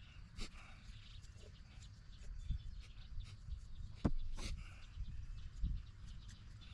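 Light clicks and taps of PVC pipe fittings and a can of pipe cleaner being handled while cleaner is daubed on, with two sharper clicks about four seconds in, over a low outdoor rumble.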